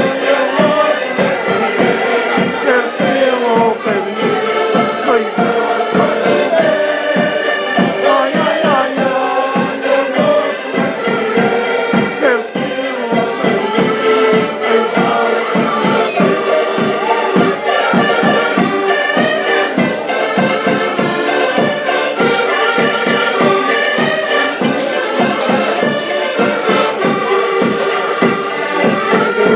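Portuguese folk music played live: several diatonic button accordions (concertinas) playing together over a steady bass-drum beat, with voices singing along.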